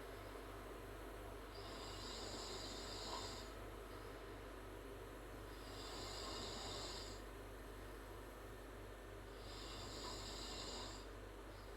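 A girl snoring through an open mouth, with three hissy snoring breaths about four seconds apart.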